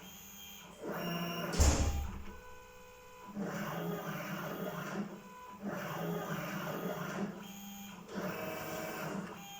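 Stepper motors of a home-built CNC machine driving its axes in a series of short moves, each move with its own steady whine, changing pitch every second or so. A single loud knock sounds near the second second.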